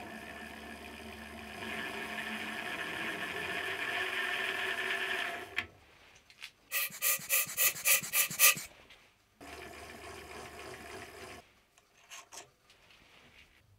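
Mini lathe cutting an internal acme thread in a brass nut: the motor runs with a crunchy, grating cut that builds over the first few seconds and stops. Then a run of about eight sharp scrapes at roughly four a second, and the lathe runs again briefly before a few faint clicks.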